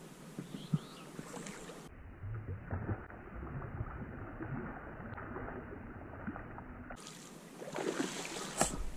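A hooked salmon thrashing and splashing at the surface of a small river while being played on a fly rod, with the loudest splashes near the end.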